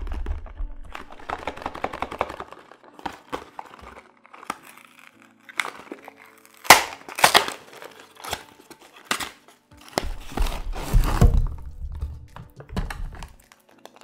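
A cardboard Kinder Surprise box being torn open by hand, its paper flaps tearing and crinkling with sharp cracks. Knocks and bumps follow as the foil-wrapped chocolate eggs are handled and set down.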